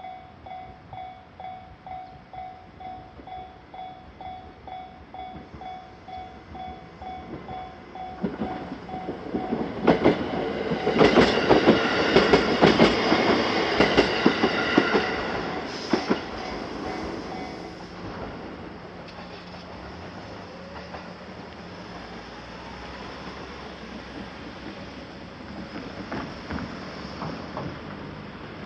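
Japanese level-crossing warning bell dinging about twice a second as a train passes. The wheels clack loudly over the rail joints from about eight seconds in, loudest about ten to fifteen seconds in. The bell stops after about seventeen seconds, and the train's steady running noise fades away.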